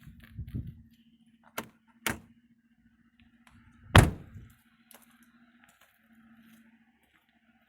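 Handling noises from small mechanical parts being worked by hand: a couple of sharp clicks and one loud knock about four seconds in, over a faint steady hum.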